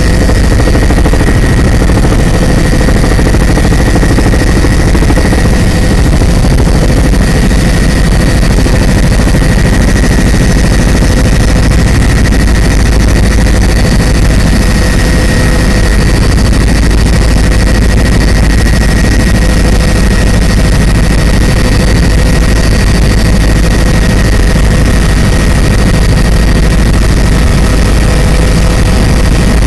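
Loud, steady cabin noise of an aircraft in flight, heard from inside: a deep engine rumble with a constant high whine over it.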